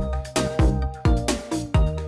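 Electronic background music with a steady beat.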